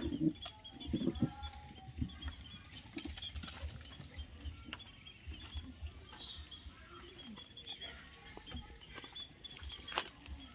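Rustling and scuffing in dry leaf litter, with scattered light clicks and knocks and a faint steady high tone behind.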